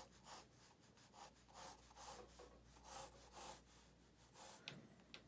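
Faint scratching of a graphite pencil sketching on paper, in short repeated strokes about two a second.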